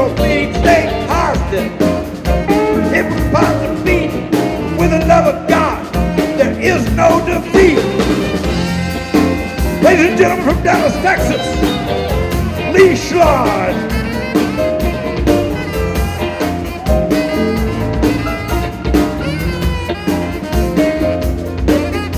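Live band playing an upbeat rock-and-roll song with a steady beat: drum kit, electric guitar, keyboards and saxophone, with a lead singer.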